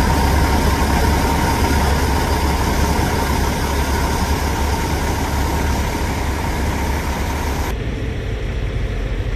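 Heavy diesel engine idling steadily, a loud low rumble with a steady whine above it. It cuts off abruptly near the end, leaving quieter background sound.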